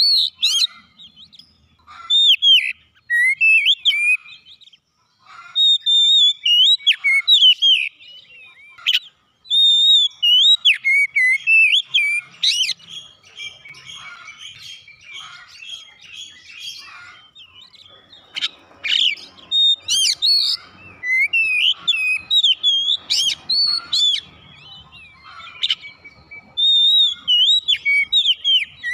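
Oriental magpie-robin singing: loud, varied runs of sliding whistled notes in phrases a second or a few seconds long, with short pauses between them.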